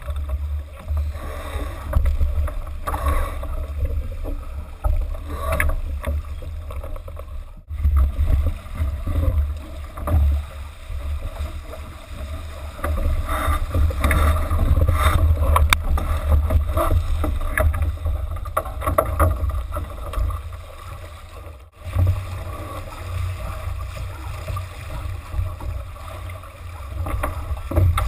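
Wind buffeting the microphone in a heavy low rumble, over the rushing and splashing of water along the hull of a J/80 sailboat under way.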